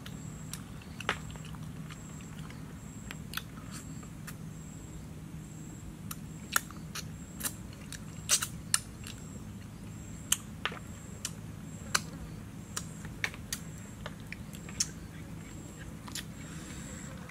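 A person eating fish with his fingers, chewing with open-mouthed lip smacks that come as short sharp clicks every second or so, thickest around the middle.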